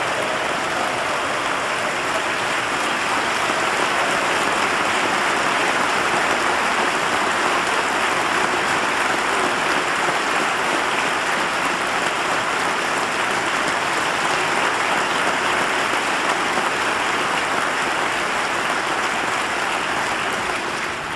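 Large crowd applauding: long, steady clapping from a chamber full of people.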